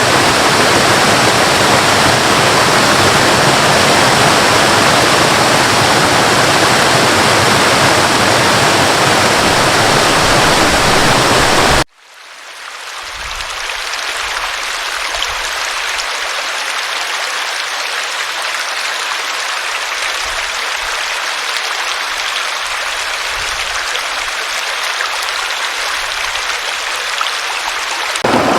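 Running water of a stream or waterfall, a steady rush. About twelve seconds in it cuts off abruptly and a thinner, lighter water sound fades in and carries on.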